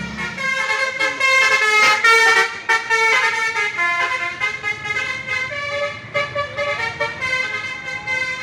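Basuri telolet musical air horn on a bus playing a quick tune of short notes that step up and down in pitch.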